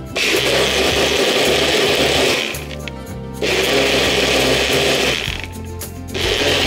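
Personal bullet-style blender blending a liquid mixture in short pulses. The motor runs for about two and a half seconds, stops, runs again for about two seconds, stops, and starts once more near the end.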